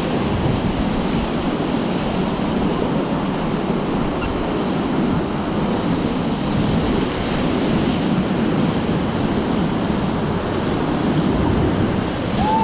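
Whitewater river rapids rushing steadily and loudly as the raft runs through them.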